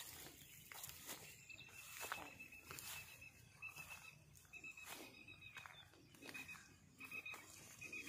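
Faint rural outdoor ambience: a thin, high, steady chirring tone, broken into short pulses, starts about a second in and carries on, with scattered soft clicks.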